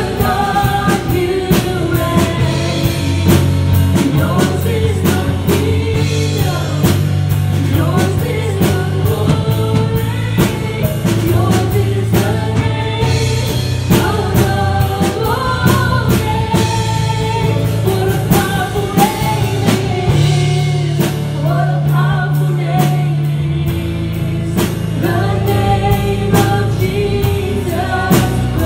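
Live gospel worship song: a woman singing lead over a keyboard and a drum kit keeping a steady beat, with sustained low bass notes.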